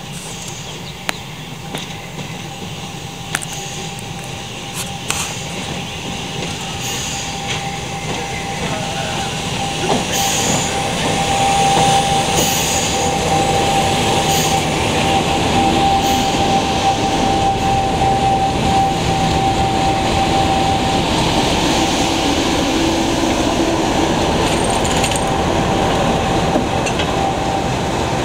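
British Rail Class 50 diesel locomotive's English Electric 16-cylinder engine running as the locomotive approaches and draws alongside, growing louder over the first ten seconds and then holding steady with a constant whine. A few sharp clicks in the first few seconds.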